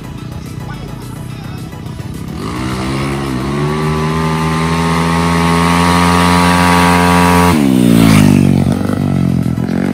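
A small motorcycle accelerating toward the listener, its engine pitch climbing steadily for about five seconds as it revs and nears. It passes close by about eight seconds in, where it is loudest, and its pitch drops sharply as it goes away.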